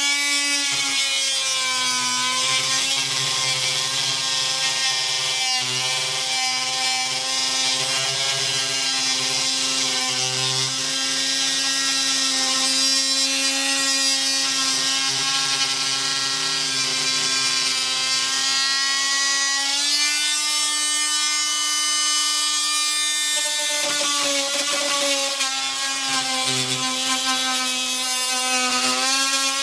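Corded oscillating multi-tool running continuously with a steady whine as its blade cuts into the fiberglass engine hatch, the pitch sagging and recovering as the blade is pressed in and eased off. About twenty seconds in it runs slightly higher, then dips briefly a few seconds later.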